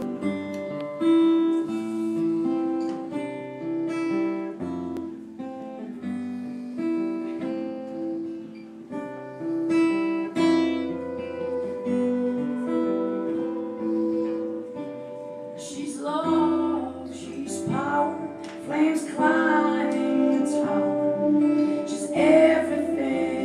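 Acoustic guitar playing the opening of a song live. Singing comes in about two-thirds of the way through.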